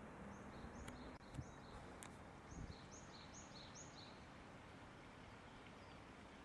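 Faint outdoor ambience with a small bird calling: a quick run of short, high chirps alternating between two pitches, lasting about four seconds, with a few faint clicks.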